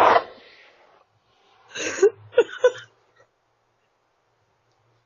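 A person's voice: a few short vocal sounds about two seconds in, after the tail of a loud noisy blast dies away in the first second.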